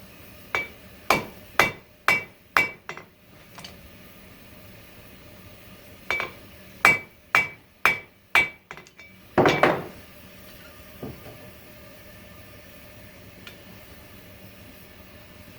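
Hand hammer striking hot 5160 coil-spring steel on an anvil while drawing a point. Two runs of about five blows, roughly two a second, each with a short metallic ring, then one heavier, longer clatter.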